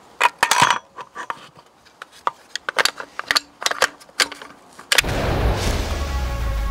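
Sharp plastic-and-metal clicks and clacks as a rifle magazine is unlatched and pulled from an MDT chassis. About five seconds in, music with a heavy bass comes in suddenly.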